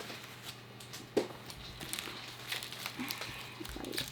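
Trading card packaging crinkling as it is handled and opened, with scattered small crackles and one sharper crack about a second in.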